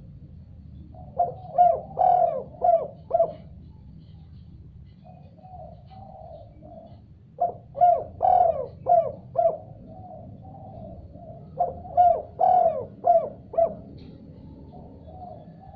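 Spotted dove (tekukur) cooing in repeated phrases: three loud phrases of several coos each, about every four to five seconds, with softer coos in the gaps between them.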